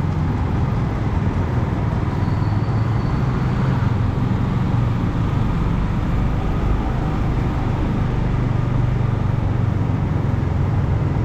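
Motorcycle engine running steadily with road noise.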